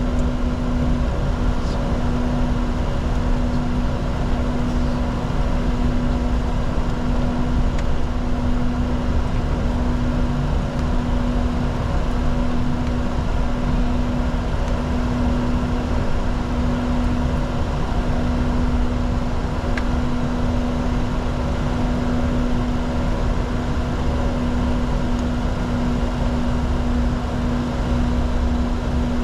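Steady cockpit noise of a Bombardier Challenger 604 with its GE CF34-3B turbofans running: a constant low drone carrying a steady humming tone, with no change in engine power.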